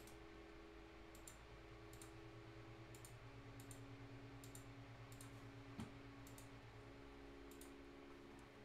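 Faint computer mouse button clicks, about ten at irregular intervals, over a low steady hum.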